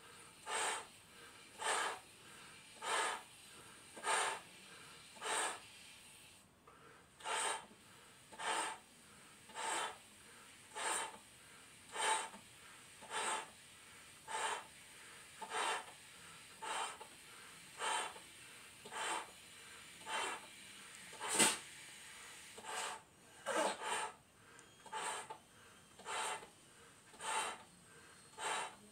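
A clear latex balloon being blown up by mouth: regular breaths about once a second as air is drawn in and pushed into the balloon, with a short pause about a quarter of the way in and one louder breath a little past the middle.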